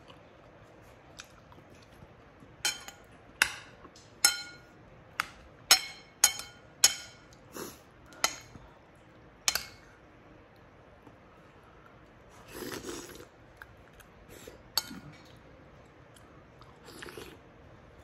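Metal cutlery clinking against a ceramic soup bowl while eating: about a dozen sharp, ringing clinks in the first half, then softer eating sounds and a few lighter taps.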